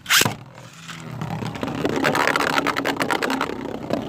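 3D-printed Beyblade spinning tops launched with a sharp rip right at the start. From about a second in they spin and scrape around the stadium with a dense, rapid clatter of small hits over a steady whirr.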